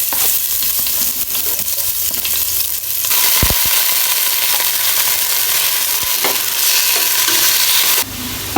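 Chicken pieces sizzling as they fry in a little oil and their own fat in a pot, a steady hiss that gets louder about three seconds in. There is a single dull knock soon after.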